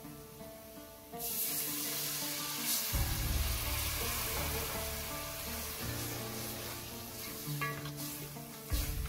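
Hot oil in a pot of frying spices bursts into a sudden sizzle about a second in, as halved cherry tomatoes and a splash of water go in. The sizzle continues, easing slightly, while a wooden spoon stirs.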